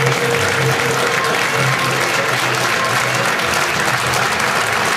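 Audience applauding steadily for the performers' bows at the end of the show, with music playing underneath.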